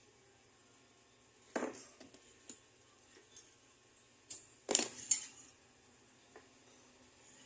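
Small metal objects clinking and tapping on a hard work surface: about six separate sharp clinks, the loudest a pair about halfway through.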